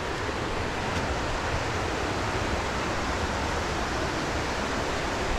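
Steady rush of fast-flowing creek water.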